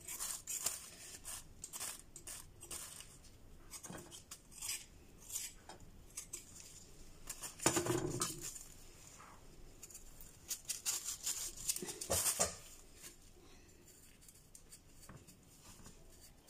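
Skin being scraped off a large carrot with a blade in short repeated strokes, with two louder knocks about halfway through and again a few seconds later.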